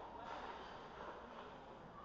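Ice rink ambience: distant, echoing voices of players and spectators over a steady low hum, with no nearby puck or stick impacts.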